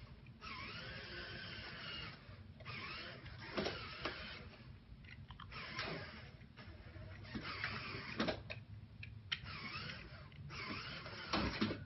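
Small electric motors and plastic gears of a remote-controlled LEGO truck whirring in stop-and-go spurts, the pitch rising and falling as it drives and steers, with a few sharp clicks. The steering is run by a plain DC motor through a slipping friction clutch.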